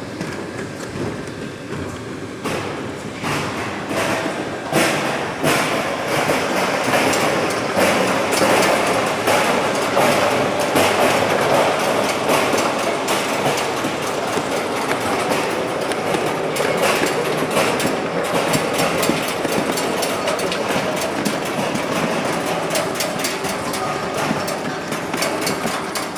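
High-speed turntable bottle unscrambler running, with plastic bottles clattering and knocking in a dense, continuous rattle that grows busier a couple of seconds in.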